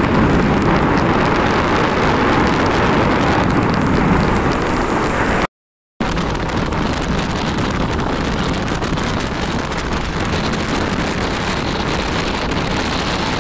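Steady rush of wind on the microphone and road noise from riding along. It cuts out for about half a second about five and a half seconds in, then returns as a slightly softer, steadier rush.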